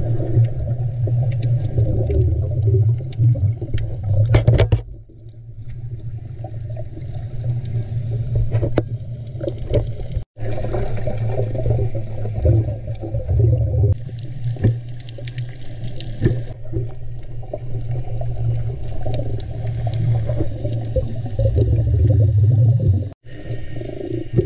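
Muffled underwater sound picked up by a submerged camera: a heavy low rumble of water with bubbling and gurgling crackles. It drops out abruptly twice, about ten seconds in and near the end.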